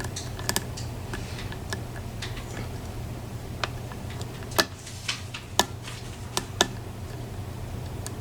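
Lock picks working the pins of a PACLOCK 90A padlock: scattered small, sharp metal clicks at irregular intervals, a few louder ones in the middle, over a low steady hum.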